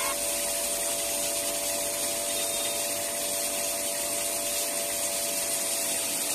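Small electric motor of a miniature DIY ink-making machine running steadily, a constant hum with a high hiss, while it pumps out dark blue liquid.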